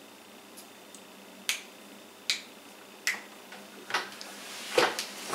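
A run of sharp clicks, about one a second at first, then coming quicker and louder near the end.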